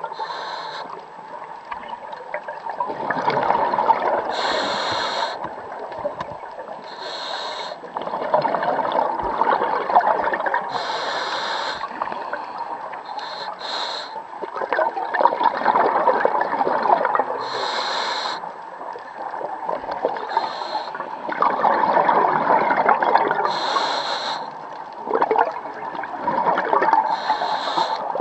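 Scuba diver breathing through a regulator underwater: short hissing inhalations alternate with longer bursts of bubbling exhaust, one breath every five or six seconds.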